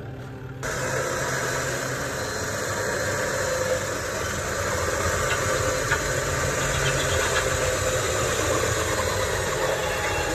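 Four-wheel-drive vehicle's engine running steadily under an even hiss that starts suddenly about half a second in.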